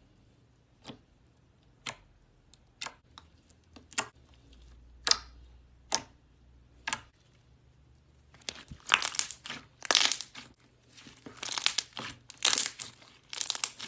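Slime being handled: sharp clicks and pops about once a second, then, from about two-thirds of the way in, denser crackling and crinkling.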